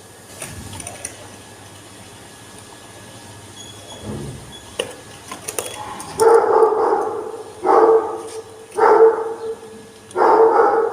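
A dog barking repeatedly, about five barks from about six seconds in. Before them there is a low knock and a few sharp clicks, about four to six seconds in.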